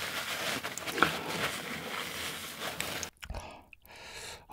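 Paper tissue rubbing and dabbing against a sweaty face, a dry scratchy rustle that stops about three seconds in. A few faint, soft sounds follow.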